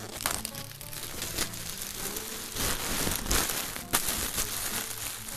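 Paper crinkling and rustling with a few sharp clicks, as a poster is handled and fitted into a picture frame.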